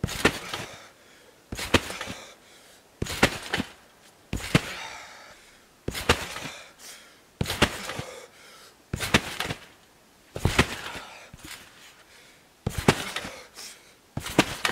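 A person bouncing on a trampoline: feet landing on the trampoline bed about every second and a half, about ten times, each landing a sharp slap that rings out briefly. There is a longer gap between two landings near the end.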